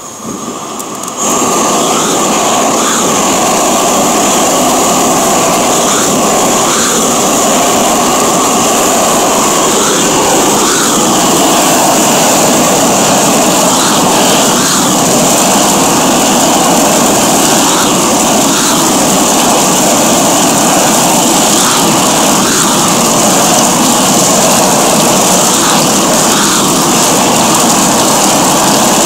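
Gas burners of a rotating-drum green chile roaster coming on at full flame about a second in, then a loud, steady roar as the mesh drum turns with the chiles tumbling inside.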